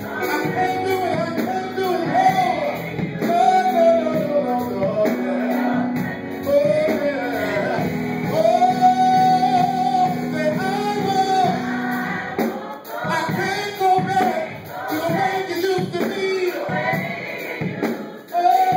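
Live gospel worship song: a man sings the lead into a microphone, with choir voices and instrumental backing. A held low note sits under the singing until about two-thirds of the way through, then drops out.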